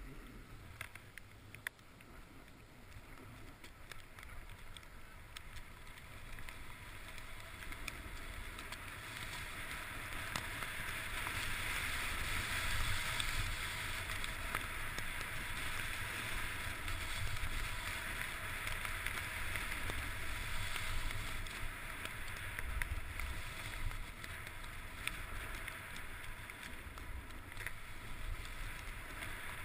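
Skis sliding over snow, a steady hiss that grows louder over the first ten seconds or so as speed picks up, with a low rumble of wind on the microphone.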